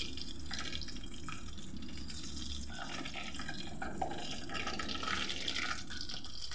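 Chicken deep-frying in hot oil: a steady sizzle with scattered small crackles.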